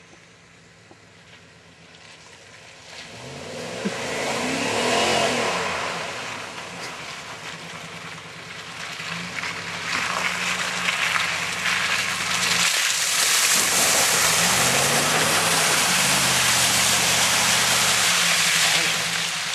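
Chevy Silverado pickup's engine revving up and down twice as the truck drives through mud. This is followed by several seconds of a loud rushing noise from the spinning tyres throwing mud, fading near the end.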